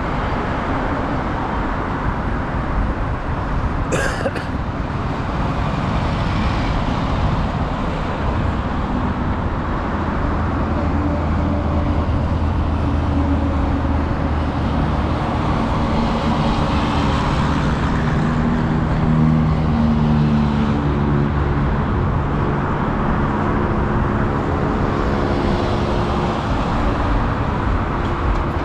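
Highway traffic: steady noise of passing vehicles and tyres, with an engine's low hum standing out through the second half. A sharp click comes about four seconds in.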